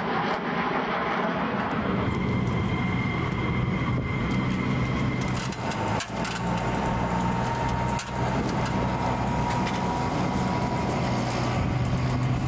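Steady jet turbine noise: a low rumble with a thin high whine over it, dipping briefly twice in the middle.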